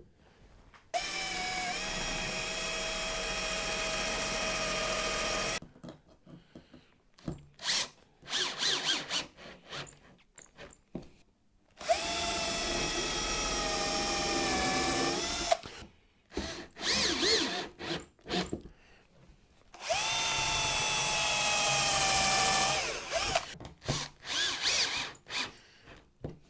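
Cordless drill/driver driving screws into a wooden cabinet frame, in three runs of about four seconds each, the motor's whine rising as it spins up and then holding steady. Between the runs come short clicks and knocks of screws and wood being handled.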